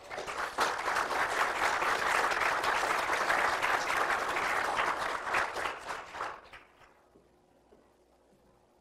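Audience applauding, a steady patter of many hands clapping that dies away about six seconds in.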